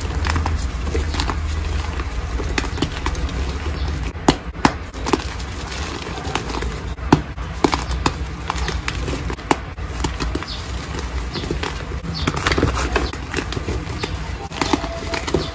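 Reformed gym chalk blocks crushed and crumbled in bare hands: dense, irregular crunching and crackling, with a few sharper cracks as pieces snap.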